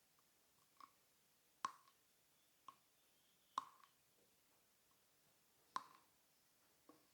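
A pen held between the teeth clicking against them as the jaw is slid forward and back: six short, sharp, irregularly spaced clicks, three of them louder, over near silence.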